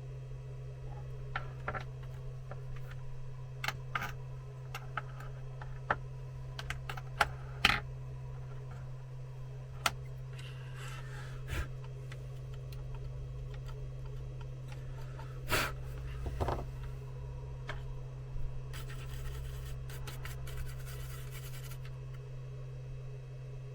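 Irregular light clicks and taps, with a steady low hum underneath and a short stretch of hiss near the end.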